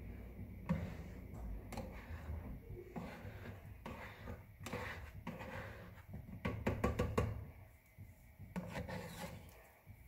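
A cooking utensil scraping and tapping in a frying pan as eggs are stirred, in irregular short strokes.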